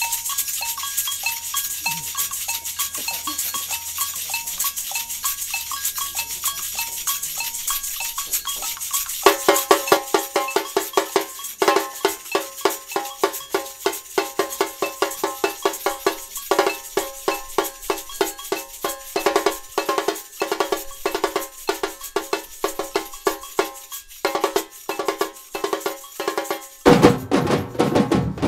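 Samba batucada rehearsal: agogô bells and shakers play a steady groove, and about nine seconds in the samba drums join with loud, fast, even strokes. Near the end a heavier, deeper drumming comes in.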